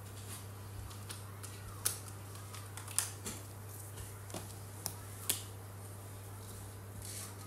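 Felt-tip markers being handled and uncapped: a handful of sharp plastic clicks and taps, the loudest about two, three and five seconds in, over a steady low electrical hum.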